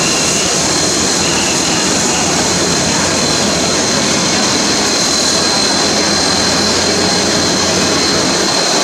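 Standing steam locomotive CT273 hissing: a loud, steady rush of escaping steam with a thin high whistle-like tone held throughout.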